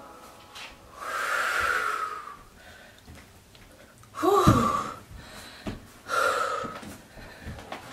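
A woman breathing hard and out of breath after vigorous painting: heavy breaths in and out, about a second in, about four seconds in and about six seconds in. The loudest, about four seconds in, is a voiced gasping sigh that falls in pitch.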